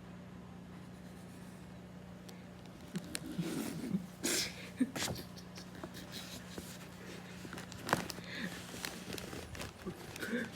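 Steady low hum, then from about three seconds in, irregular rustling and crinkling of packaging as a plush toy is unwrapped, mixed with a few short breathy vocal sounds.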